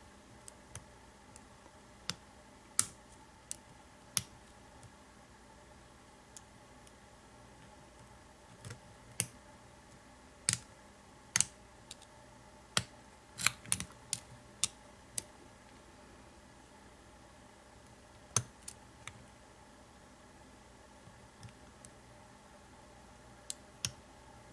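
Pick and tension bar working in the keyway of an American 700 series padlock: small, sharp clicks and ticks at irregular intervals with quiet gaps between, as the hook probes and sets the pins.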